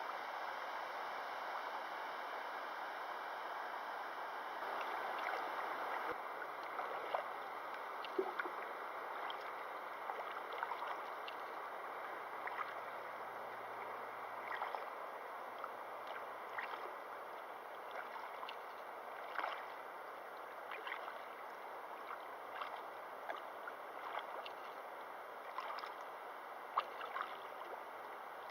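Steady rush of flowing river water, with small splashes and drips ticking here and there over it.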